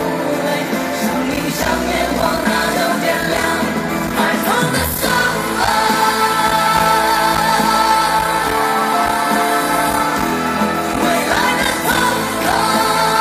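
Live pop song: a male singer sings over band accompaniment, holding long notes through the middle.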